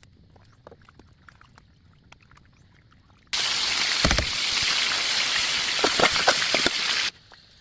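Faint ticks and clicks, then loud water rushing and splashing starts suddenly about three seconds in, with a few low knocks, and cuts off suddenly about four seconds later.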